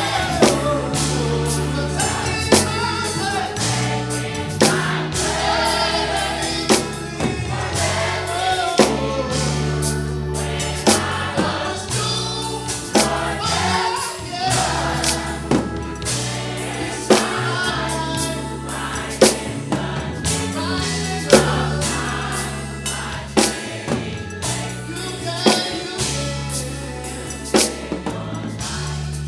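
Gospel choir singing with a live band: a steady bass line and drum kit underneath, with sharp drum accents about every two seconds.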